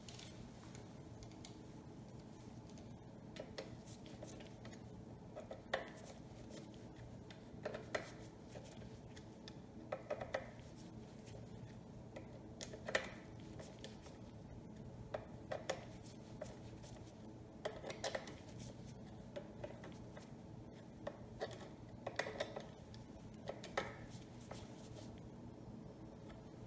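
Scattered small metallic clicks and light knocks from hand work on a stand-up scooter's throttle linkage and carburetor, over a faint steady hum.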